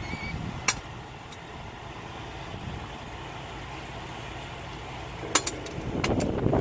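Steady low rumble of ambient noise on a cruise ship's open deck, with a sharp click about a second in and a few more clicks near the end.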